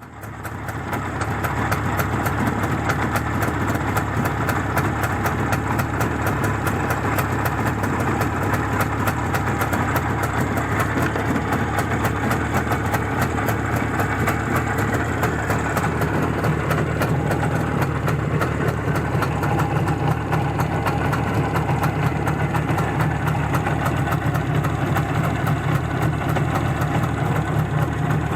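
Izh Jupiter-5 motorcycle's twin-cylinder two-stroke engine running steadily at idle. It comes in abruptly at the start and settles into an even, rapid firing beat.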